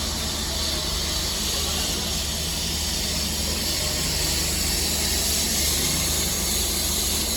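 Steady hiss over a low rumble: outdoor street noise, with passing traffic.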